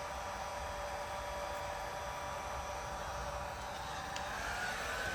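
Handheld hot-air blower running steadily, a hiss of air over a motor hum and whine, as it warms headlight tint film so the film conforms to the lamp. The whine shifts up in pitch near the end.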